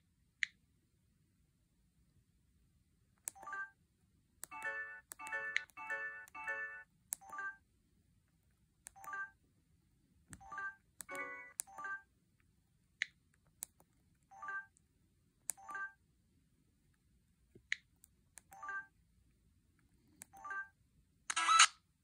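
Samsung SGH-F400 mobile phone's key and menu-navigation tones: short electronic beeps, each a small chord, with sharp clicks, sounding irregularly as keys are pressed, with a quick run of beeps a few seconds in. Near the end a loud burst of a preloaded ringtone starts playing.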